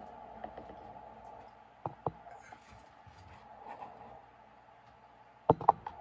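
A steady low hum with light clicks and taps: two short clicks about two seconds in, and a louder cluster of sharp clicks near the end.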